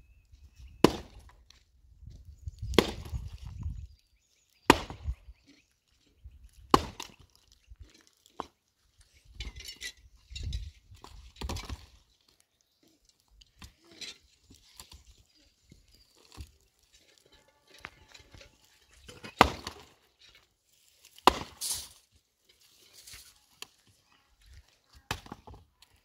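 Axe chopping dry wood: sharp strikes about every two seconds at first, then a stretch of wood being handled and broken, then three more strikes near the end.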